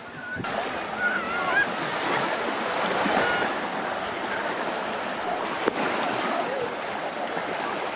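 Small Baltic Sea waves washing onto a sandy beach, with a faint background of beachgoers' voices. The sound steps up louder about half a second in.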